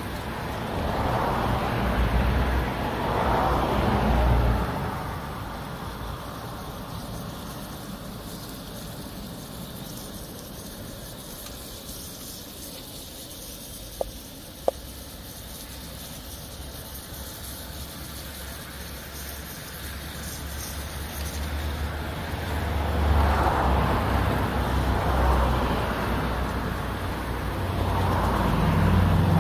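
Road traffic passing close by: a vehicle swells and fades early on, and more traffic builds up toward the end. About halfway through there are two short sharp taps.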